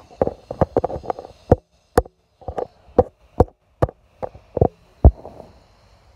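Handling noise from a phone carried by hand while walking: an irregular run of soft knocks and taps, about two or three a second, that stops about five seconds in.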